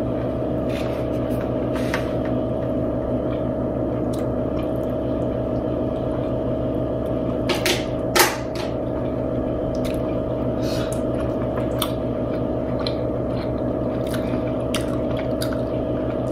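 Eating at a table over a steady background hum: scattered small clicks and mouth sounds of chewing, with a louder pair of clicks about halfway through as a fork scoops food from a plastic bowl.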